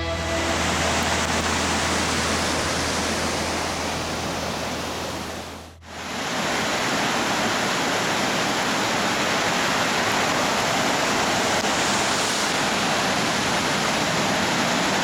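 Steady rushing water: a dense, even hiss with a low steady hum beneath it. Both drop out briefly at a cut about six seconds in; the hiss then comes back without the hum.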